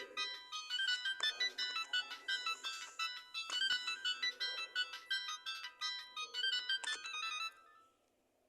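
Huawei Vinaphone Alo 2200 mobile phone ringtone: a bright electronic melody of quick, short notes at about four or five a second. It stops about seven and a half seconds in.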